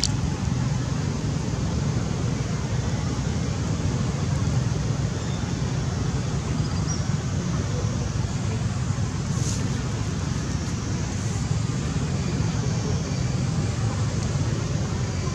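Steady low rumbling outdoor background noise with a few faint, brief high chirps; no call from the resting monkey.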